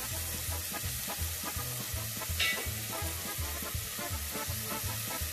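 Diced onion sizzling steadily in hot oil in a stainless-steel saucepan over medium heat, with a brief louder crackle about two and a half seconds in.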